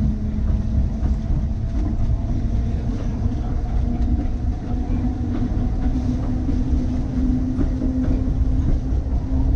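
Key System 187 electric railcar running along the track: a steady low rumble of wheels on rail with occasional clicks, under a motor whine that rises slightly in pitch as the car gains speed.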